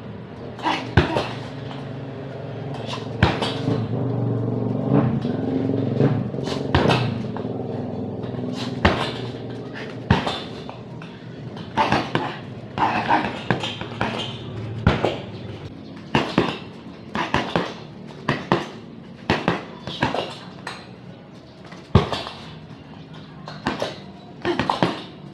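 Boxing gloves striking a hanging heavy bag in quick combinations, sharp thuds in clusters of two to four. A low steady hum is also heard in the background, strongest for the first ten seconds or so, then fading.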